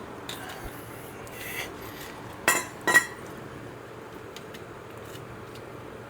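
Steel-backed brake pads handled against metal: a brief scrape, then two sharp metallic clinks about half a second apart with a short ring.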